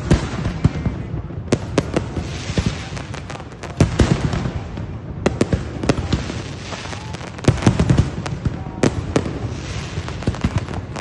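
Fireworks going off close by in a rapid, irregular string of sharp bangs, with stretches of crackling hiss in between.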